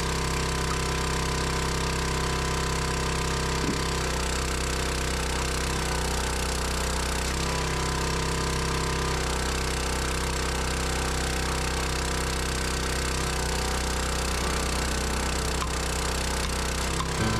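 An engine running steadily at a constant speed, its tone shifting slightly every few seconds.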